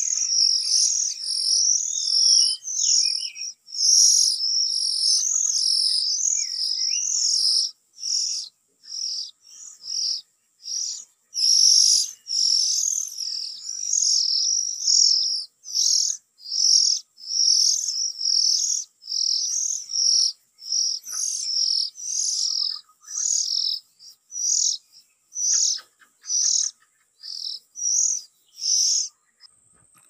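Oriental magpie-robin calling: a long, regular series of high, sharp chirps, about two a second, with a few short breaks, stopping just before the end.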